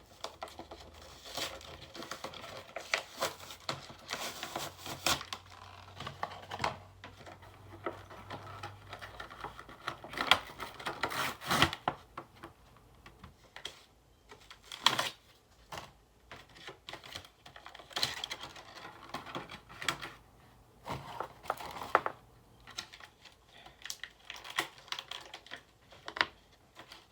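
An action figure's toy box being opened by hand: many irregular clicks, taps and short rustling scrapes as the packaging is pulled and handled.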